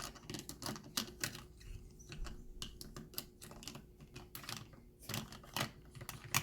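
Irregular light clicks and taps of plastic toy cookware being handled on a toy kitchen stove, over a faint steady hum.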